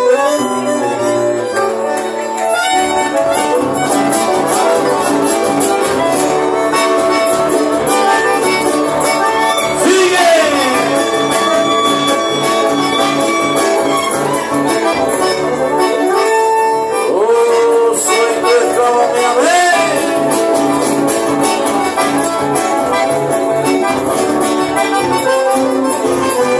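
Live acoustic guitar music from two guitarists, with a sustained melody line held over the strummed and picked chords.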